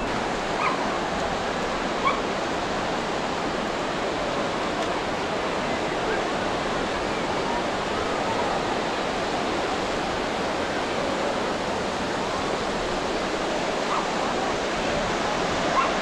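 Steady wash of breaking surf mixed with the hubbub of distant voices on a busy beach. A couple of short, sharp sounds stand out in the first few seconds.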